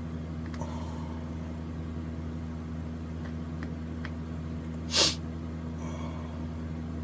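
A steady low hum with a few faint ticks, and one short, loud puff of noise about five seconds in, like a sharp breath through the nose.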